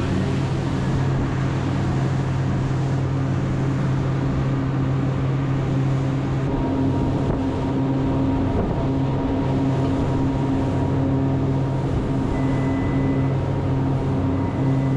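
Honda 150 outboard engine running steadily at cruising speed as the boat is under way, with spray and water noise off the hull.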